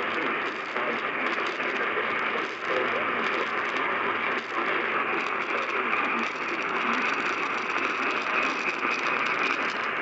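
AM radio receiving through heavy static: a steady hiss whose level flickers, with no clear voice or alert tones coming through.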